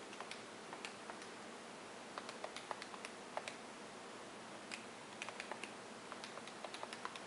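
Faint clicks of calculator buttons being pressed in short runs, keying in ten to the negative 3.82.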